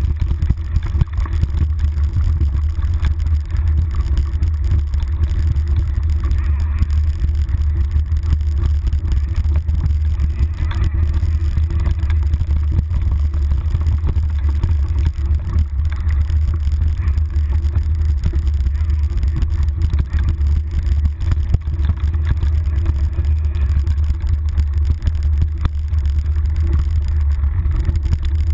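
Steady low rumble of wind and vibration on a handlebar-mounted GoPro on a mountain bike riding fast downhill, with a constant scatter of small clicks and rattles from the bike over the rough dirt trail.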